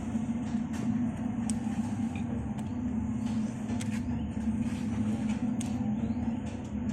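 Chip-slicing machine running with a steady hum, a few faint clicks scattered through it.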